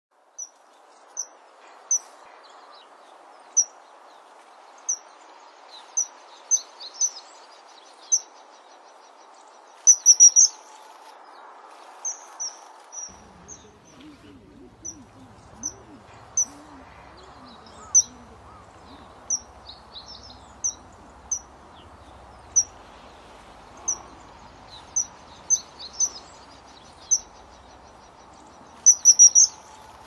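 Common kingfisher calling: short, high single notes about once a second, with quick runs of several notes about ten seconds in and again near the end, over a steady hiss.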